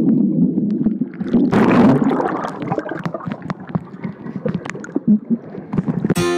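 Underwater sound from a camera held under the water: a muffled rumble of churning water and bubbles, with a louder rush of bubbling about one and a half seconds in, then scattered small clicks and pops. Strummed acoustic guitar music comes in just before the end.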